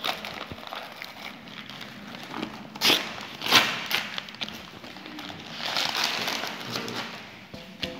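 Wrapping paper being torn and crumpled off a stack of books by hand: two sharp rips about three seconds in, then a longer stretch of rustling paper near the end.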